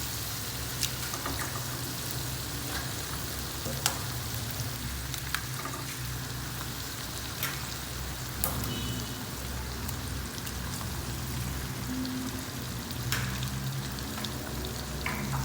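Egg frying in hot butter with shallots, garlic and bird's-eye chilli: a steady sizzle with a few sharp pops.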